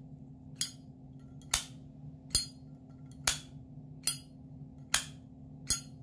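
Zippo 49459 Crown Royal windproof lighter's hinged lid being flipped open and snapped shut again and again: seven sharp metallic clicks, about one every 0.8 s. This is the lighter's signature open-and-close click.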